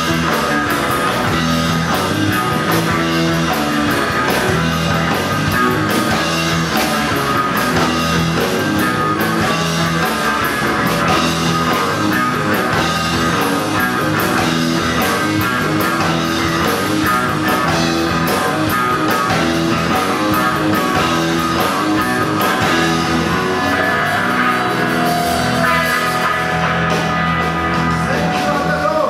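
Live rock band playing loudly: electric guitars over bass guitar and drum kit.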